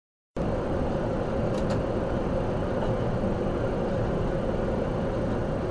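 Steady road and engine noise of a vehicle cruising at about 60 mph, heard from inside through the dash camera. It cuts in abruptly about a third of a second in.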